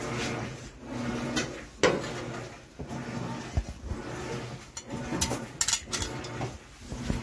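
Metal clinks, clacks and knocks from a screwdriver and the sheet-metal access cover of an electric water heater being handled. The sharpest knock comes about two seconds in, and a run of quick clicks follows around five seconds in.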